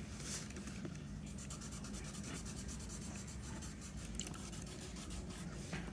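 Felt-tip marker scratching over paper in quick back-and-forth strokes, colouring in a drawing.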